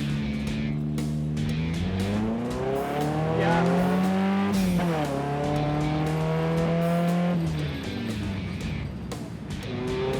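1959 Tornado Thunderbolt race car's engine pulling away under acceleration, its pitch climbing, dropping sharply at a gear change about halfway through, holding steady, then falling away as the throttle eases near the end.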